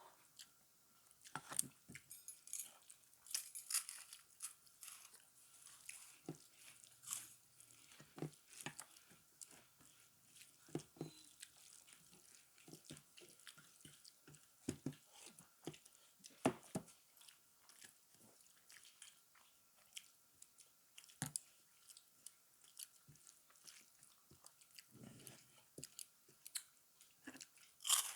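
Close-up eating sounds: a person chewing and biting a meal of rice with dal and curries, with irregular wet smacks and occasional crunches.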